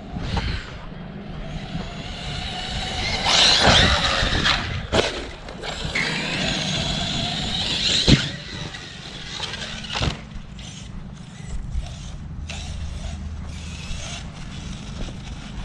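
Arrma Kraton 6S RC car driving hard: its electric motor and drivetrain whine up and down in pitch as it speeds up and slows, over a rush of tyre noise, with a few sharp knocks, the loudest about eight seconds in.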